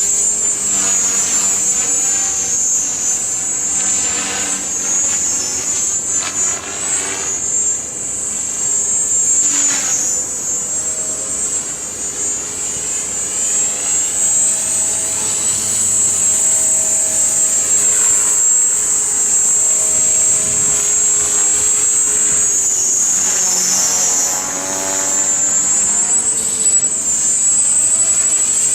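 Electric Art-Tech Genius 500 RC helicopter flying, with a steady high-pitched whine over rotor-blade noise that swirls and shifts in pitch as it manoeuvres.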